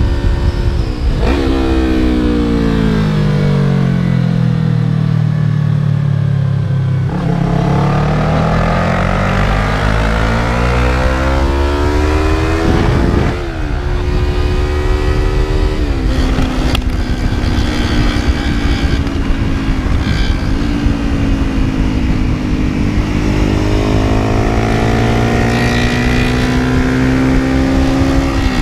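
Yamaha YZF-R3's parallel-twin engine heard from the rider's seat over wind rush. The revs fall for several seconds as the throttle is rolled off, then climb hard, break with a gear change about halfway, hold steady, and climb again near the end.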